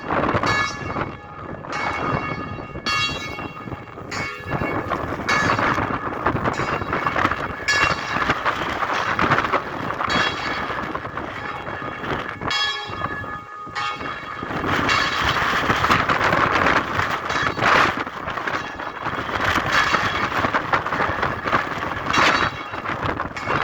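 Bells ringing with a run of separate strokes, each leaving a ringing tone, under a rushing noise of wind that swells in the middle and partly covers the strokes.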